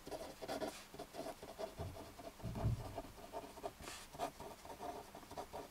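Pen writing on paper: a run of short, irregular scratching strokes as words are written out, with a couple of soft low thumps about two to three seconds in.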